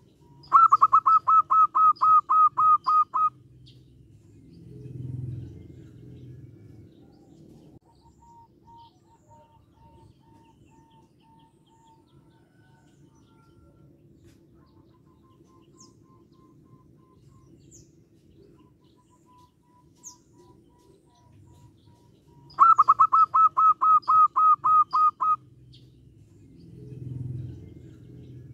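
A zebra dove calls in two bursts of fast, clipped, even notes, about four or five a second for nearly three seconds each. The second burst comes about twenty seconds after the first. Each burst is followed by a softer low sound.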